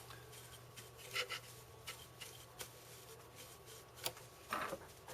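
Faint clicks and rubbing from hands handling the metal mechanism of a vintage record changer, with a steady low hum underneath.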